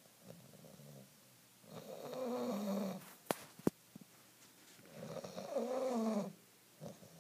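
Bulldog snoring in her sleep: two long snores, about two and five seconds in, with soft breathing between. Two sharp clicks half a second apart fall between the snores.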